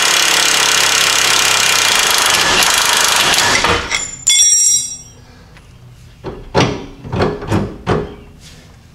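Cordless impact wrench hammering on the heim-joint nut of the steering linkage for about four seconds, then a brief higher whir as it spins. Several sharp metal knocks follow as the steering link is worked loose by hand.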